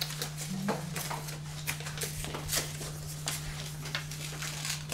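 Small children's scissors snipping paper: a series of short, sharp snips at uneven spacing, about two a second, over a steady low hum.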